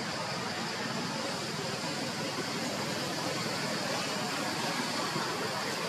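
Steady background noise: an even hiss with a steady high-pitched band on top, unchanging throughout, with no distinct calls or impacts.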